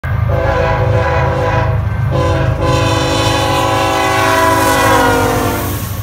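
An air horn of several tones at once sounds two blasts, the second longer and sagging in pitch as it dies away. Heavy wind rumble on the microphone runs under it.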